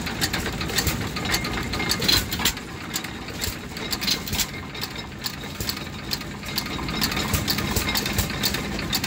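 Antique stationary gasoline engine running, with a quick, uneven series of sharp clicks and knocks over a low, steady chug.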